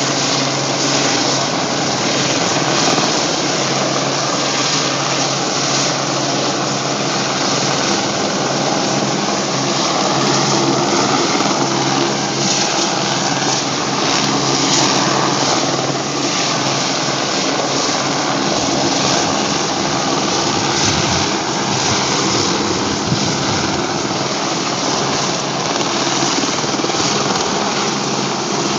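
Helicopter hovering low over water, its rotor and engine running steadily and loudly while it dips and fills a hanging water bucket.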